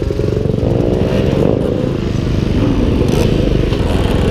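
Motorcycle engines running together: a Husqvarna 701's single-cylinder engine right under the rider, with other supermoto and dirt-bike engines idling around it. One engine revs briefly with a rising pitch about a second in.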